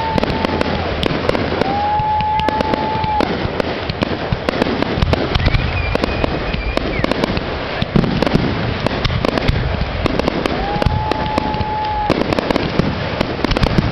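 Aerial display fireworks going off in a steady barrage: overlapping bangs and crackle of bursting shells. Several steady whistling tones, each a second or so long, sound over the bursts.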